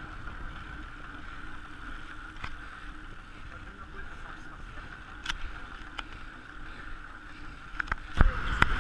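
Riding noise from bicycles at speed on asphalt: a steady tyre hum with wind rumbling on the microphone. A few faint clicks are scattered through it, and a loud knock with sharper clicks comes near the end.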